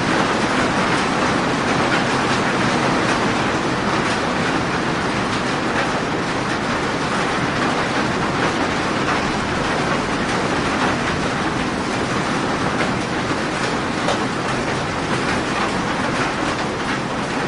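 Rain falling steadily: an even hiss dotted with many fine drop ticks.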